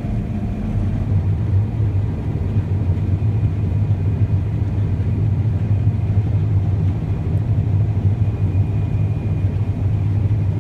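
Combine harvester running steadily during wheat harvest, a low even drone that holds constant throughout.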